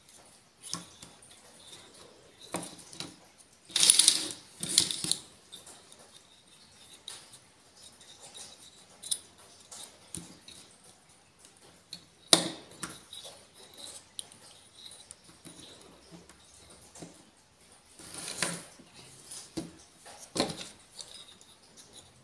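Small plastic Minecraft toy figures clicking and knocking against each other and the tabletop as they are handled and their jointed parts and accessories are fitted on. The sound is a string of scattered clicks and rattles, with louder clatters about four and five seconds in and a few more later.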